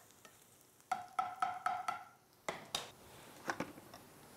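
A spoon stirring and knocking in a metal pan, the pan ringing briefly after a run of knocks about a second in, then a few duller taps. Chopped onions, garlic and curry leaves are sweating in oil.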